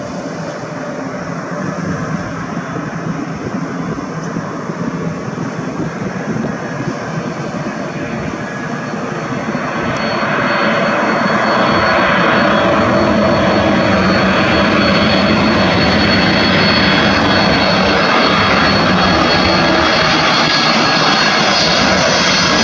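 Boeing 747-400 cabin noise during landing: a steady rumble and rush of air, with the jet engines swelling louder about ten seconds in and then holding steady with a faint high whine.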